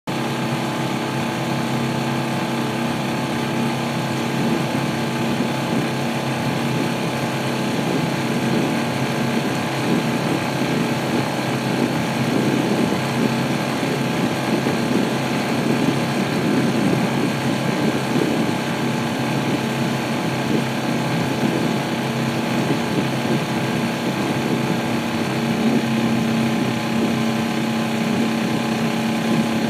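Small boat motor running at a steady speed, a constant engine drone.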